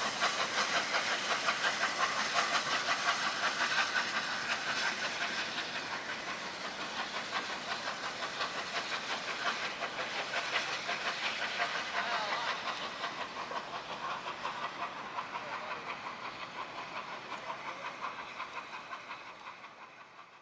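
Class A1 steam locomotive Tornado arriving slowly, a steady hiss of steam pulsing a few times a second. It grows gradually fainter, then fades out at the end.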